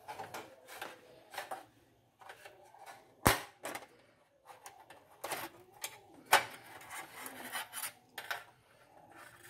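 Hands handling an LED backlight strip against a TV's sheet-metal back panel: irregular rubbing and light tapping, with two sharp clicks about three and six seconds in.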